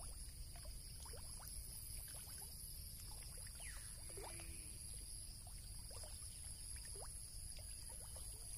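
Fish taking feed at a pond's surface: scattered small plops and sucks on the water, about one or two a second.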